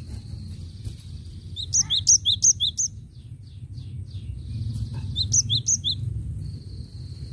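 Cinereous tit (gelatik batu) calling: two quick runs of sharp, high chirps, one about two seconds in and another about five seconds in.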